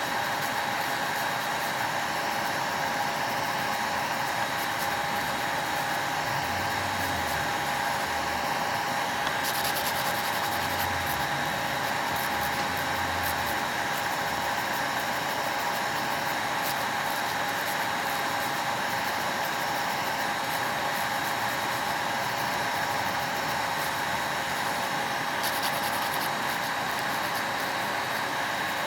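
Electric nail drill (e-file) running at a steady whine, its bit grinding on the nail to shape it. A rougher, scratchier grinding comes in about a third of the way through and again near the end.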